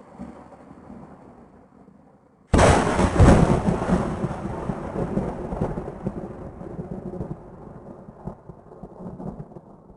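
Thunder sound effect. A fading rumble dies out, then about two and a half seconds in a sudden loud thunderclap breaks and rolls on in a long rumble that slowly fades.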